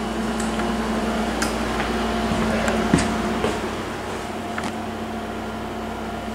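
Steady motor hum with a few light clicks and knocks; one knock about three seconds in is the loudest, and the hum drops a little after about four seconds.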